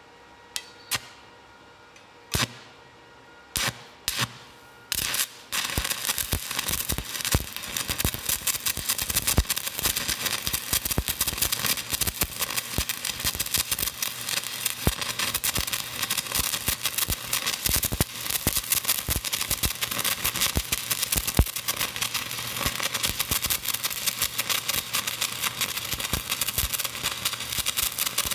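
Stick-welding arc from a 1/8-inch 7018 electrode run at about 190 amps. A few sharp separate pops come as the rod is struck, then about five seconds in the arc catches and holds with a steady dense crackle. It cuts off just before the end.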